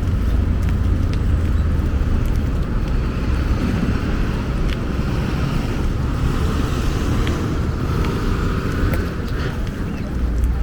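Wind rumbling on the microphone of a camera carried on a moving bicycle: a steady low rumble with scattered light clicks and rattles.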